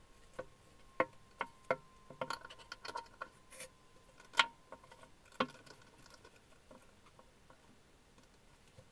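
Metal parts of an old Venusberg breast drill being fitted together by hand: the steel spindle shaft knocking and clicking against the frame and gears. About a dozen sharp metallic clicks and knocks fall in the first six seconds, with a faint ring lingering between them, and the loudest comes about four and a half seconds in.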